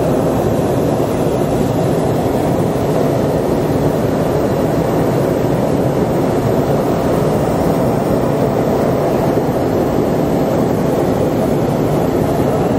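Hot air balloon's propane burner firing in one long, steady blast.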